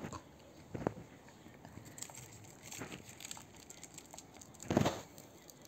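German Shepherd snapping up food and chewing: a sharp snap of the jaws, another crunch just under a second later, faint scattered clicks, then the loudest crunch near the end.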